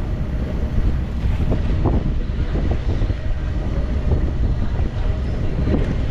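Wind buffeting the microphone aboard a sailboat underway, a steady low rumble.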